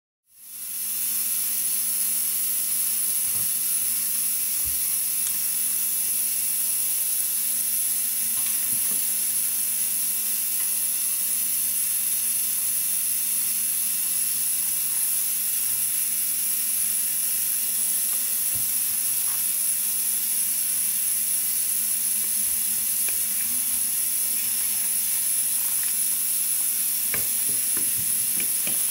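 Steady hiss with a thin high whine and a low hum underneath, like electrical or recording noise, with a few faint clicks near the end.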